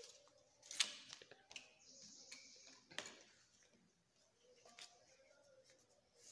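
Paper rustling and crinkling as a folded sheet of paper is handled and creased by hand, with three sharp clicks or taps, the loudest about a second in.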